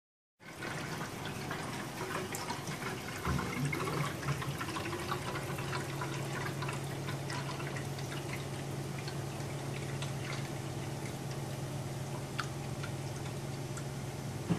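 Backed-up sewage water swirling and draining down a stainless steel kitchen sink, with a dense crackle of small splashes that is busiest in the first few seconds. The building's blocked drain has forced wastewater from the upper floors up through the sink, and it is now draining again. A steady low hum sets in about five seconds in, and there is a sharp click right at the end.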